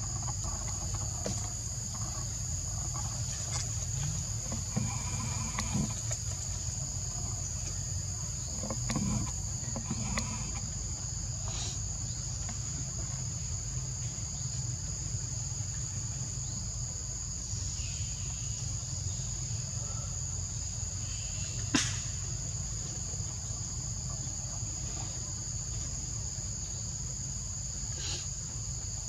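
Steady, high-pitched drone of forest insects, unbroken throughout, over a low background rumble. A single sharp click cuts through about two-thirds of the way in.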